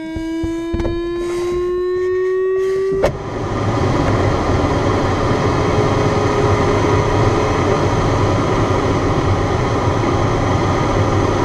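Steady rush of airflow inside a glider cockpit in flight, with a low hum under it. It opens with about three seconds of an electronic cockpit instrument tone rising slowly in pitch over knocks from the landing roll on grass, then cuts off suddenly.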